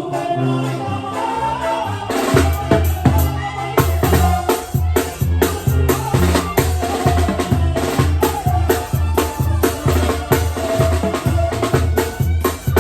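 Mexican band music with tarola snare drum and bass drum. The music holds sustained melodic notes for about two seconds, then the drums come in hard with a steady beat and sharp snare hits.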